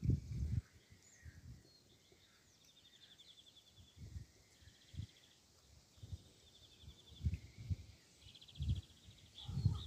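Quiet outdoor ambience: a short, rapidly pulsed high chirring repeats four or five times, among a few dull low thumps, the loudest right at the start.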